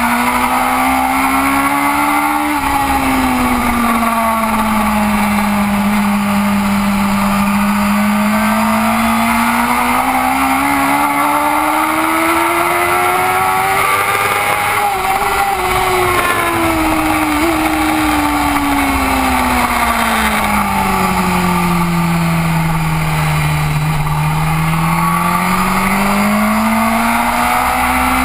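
BMW S1000RR race motorcycle's inline-four engine heard from onboard at racing speed, its note climbing and falling slowly several times as the rider accelerates and rolls off between corners. Heavy wind rush runs under it.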